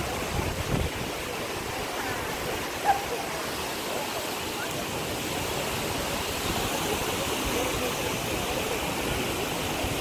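Steady rush of a rocky river and waterfall. A few low bumps come in the first second, and a single sharp click comes about three seconds in.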